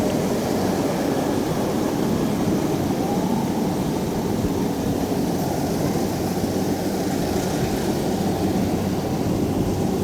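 Kubota DC70 combine harvester's diesel engine running steadily with an even hum and a broad rushing noise over it.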